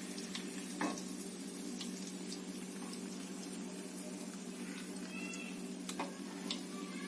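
Fish pieces shallow-frying in oil, with faint scattered crackles over a steady hum. A short high call comes about five seconds in.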